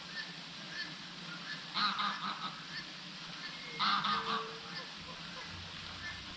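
Two loud, harsh honking bird calls about two seconds apart, over faint chirps of other birds.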